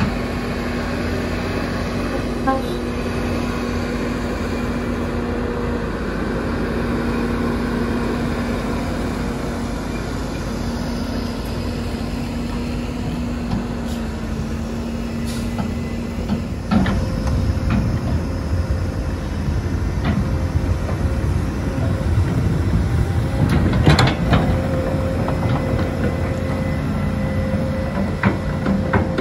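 Heavy diesel engines running steadily at a sand-loading point. About two-thirds of the way through they get louder and rougher, and a few sharp knocks follow a little later.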